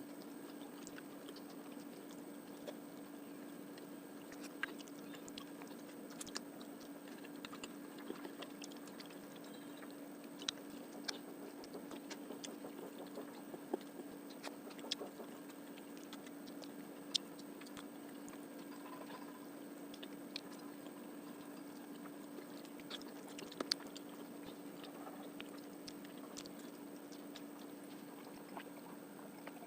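Close-miked chewing and mouth sounds of someone eating fish curry with rice: scattered, irregular small wet clicks and smacks. A steady low hum runs underneath.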